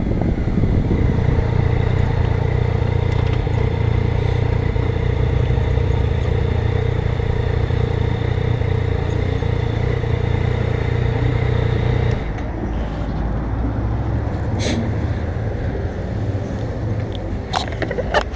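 Yamaha FJ-09 (Tracer) 847 cc three-cylinder motorcycle engine running steadily, heard from the rider's position. Its sound drops off abruptly about twelve seconds in and leaves a lower rumble, followed by a few sharp clicks and knocks near the end.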